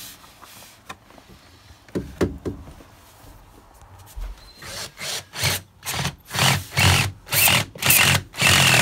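Cordless drill with a hole saw cutting into vinyl plank flooring in short bursts, about two a second, louder over the last few seconds. A few light knocks come earlier.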